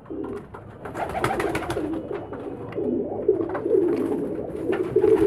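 Domestic pigeons cooing continuously, with a few light clicks and scrapes from a small spoon stirring flour-and-water paste in a plastic cup.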